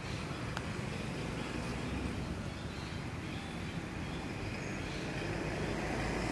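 Steady low rumbling background noise outdoors, growing slightly louder.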